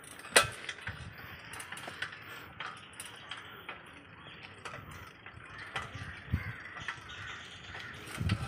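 Bicycle rattling and clicking as it is ridden along a rough lane: irregular sharp clicks from the chain and frame, the loudest about half a second in, over a steady hiss of riding.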